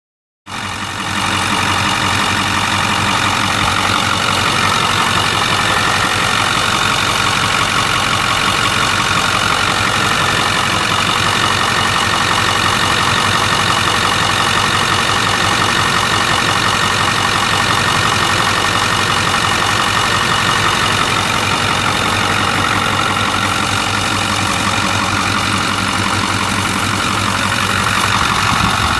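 Ford 6.4L Power Stroke V8 turbo diesel running at a steady idle, heard close up in the open engine bay.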